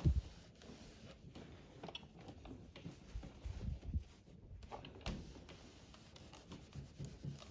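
Fabric being smoothed by hand and pressed with a household iron: faint rubbing and rustling, with a few soft low knocks as the iron is moved and set down.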